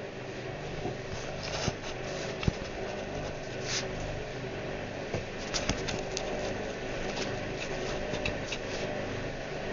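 Whirlpool washing machine running: a steady hum with scattered clicks and a few sharp knocks as the drum turns.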